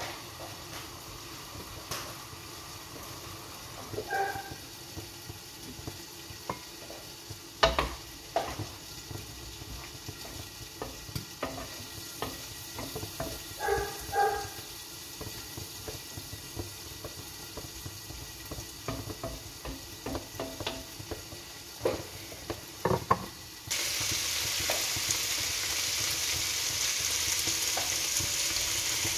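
A wooden spatula stirring in a frying pan on the stove, with scattered knocks, scrapes and a few light metal clinks. A few seconds before the end a loud, steady sizzle starts suddenly as food hits the hot pan.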